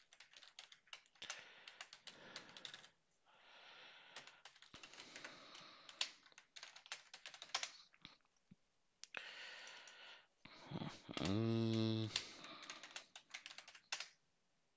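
Typing on a computer keyboard: irregular runs of keystroke clicks with short pauses. About eleven seconds in, a brief hummed voice sound of about a second is the loudest thing.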